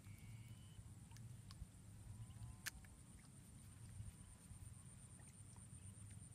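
Near silence: quiet outdoor ambience with a low steady rumble and a thin, steady high tone, broken by a single sharp click about two and a half seconds in.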